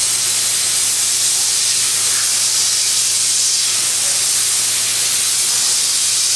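CNC plasma torch cutting steel plate: a loud, steady hiss from the plasma arc and its gas jet, with a faint low hum underneath.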